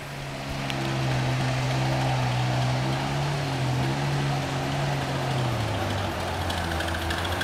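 A ride-on miniature railway train approaching along the track: a steady low hum with overtones over a hiss, dropping to a lower pitch about five and a half seconds in.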